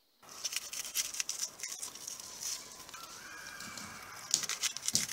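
Kitchen knife peeling and slicing a raw onion: crisp crackling and scraping of the onion skin and flesh against the blade, in quick irregular clicks.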